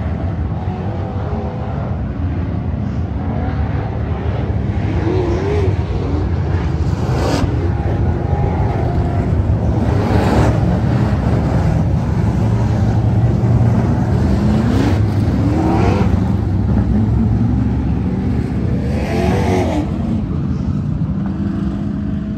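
A field of street stock race cars running hard around a dirt oval track. The engines drone on together, and their notes rise and fall as cars go by, with a few louder passes.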